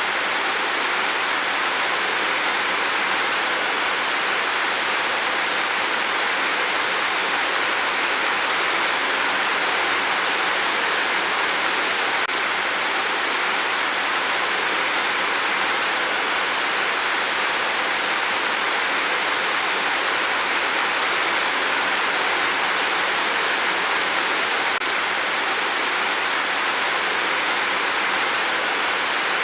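Steady rain, an even hiss that holds without change.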